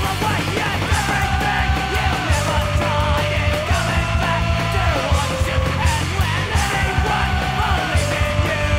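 Punk rock recording: a full band playing fast and loud, with yelled vocals over a pounding bass and drum low end.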